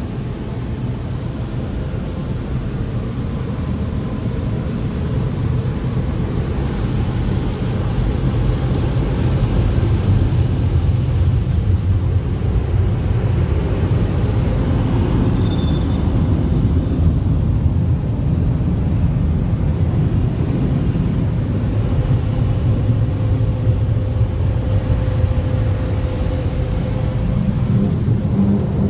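Steady low rumble heard inside a car's cabin while the car rolls through the exit of an automatic car wash, growing somewhat louder about a third of the way in, with a faint steady hum running under it.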